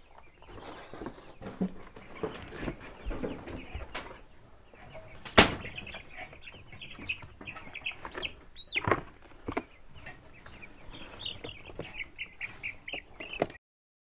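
A brooder full of young Cornish cross broiler chicks peeping constantly while being caught by hand, with wing flapping and scuffling in the litter. A sharp knock about five seconds in is the loudest sound, and one chick gives a single louder squawk near the middle.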